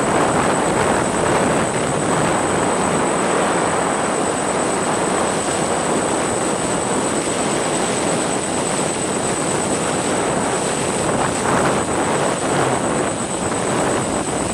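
Multirotor drone's propellers running steadily in flight: a dense even whirring hiss with a thin, steady high whine above it.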